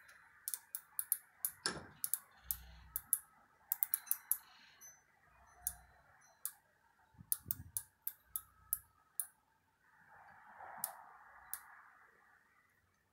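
Micrometer thimble ratchet clicking in short irregular runs as it is closed onto a valve spring compressed to coil bind in a bench vise, with a few soft knocks from handling.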